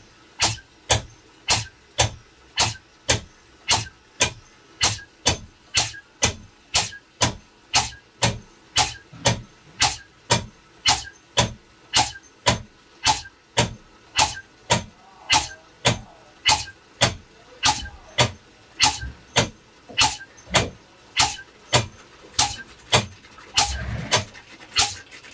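Air-driven transfer pump of a polyurethane spray rig stroking steadily, its air exhaust puffing about twice a second, while it pushes plasticizer flushing fluid through the hose into a waste bucket. Near the end a heavier sputter comes as the air pocket reaches the hose end and it spits, the sign that the whole hose has been flushed.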